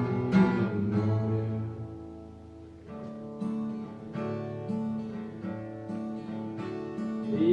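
Instrumental break of a song on acoustic guitar: strummed chords at first that fade about two seconds in, then softer picked notes.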